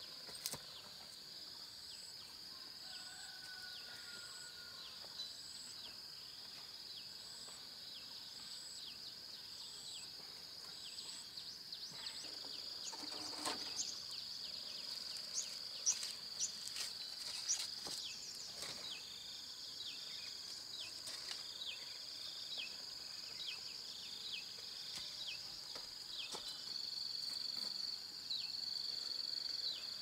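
Insects droning steadily at a high pitch, with a second high note pulsing at an even beat, a little more than once a second, in the first part. Around the middle comes a run of sharp clicks and short chirps.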